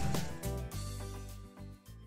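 Cartoon background music fading out, ending on low held tones.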